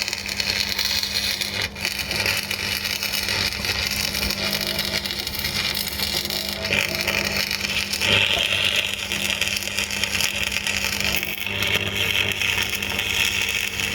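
Stick (arc) welder running a continuous bead inside a differential to weld the gears solid, the arc crackling and sizzling steadily over a low electrical hum; the crackle grows brighter about halfway through.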